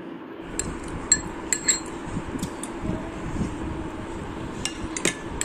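Metal spoon clinking against a ceramic plate while scooping food, a series of light, sharp clinks spread through the few seconds.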